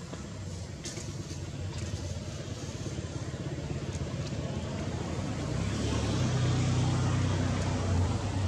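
A motor engine running steadily, growing louder over the second half, as a motor vehicle comes nearer.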